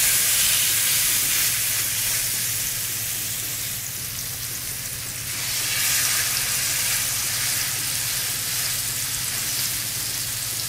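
Marinated chicken thighs searing in smoking-hot oil in a stainless steel skillet, sizzling loudly. The sizzle swells again about five or six seconds in as more pieces go into the pan. The pan is hot enough that the seasonings are burning.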